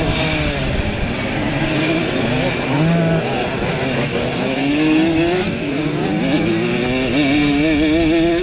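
Simson two-stroke race mopeds at full throttle. The nearby engine revs hard, its pitch climbing and dropping repeatedly through the gears, with other two-strokes in the pack running close by.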